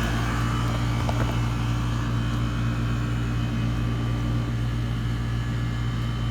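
Outdoor condensing unit of a Trane R22 central air conditioner running steadily, a compressor hum and condenser fan noise; the system is low on refrigerant.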